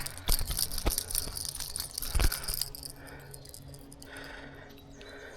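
Rattling and light metallic jingling with a few sharp knocks over the first two and a half seconds, then quieter: a topwater fishing lure and its hooks clattering while a freshly caught fish is handled.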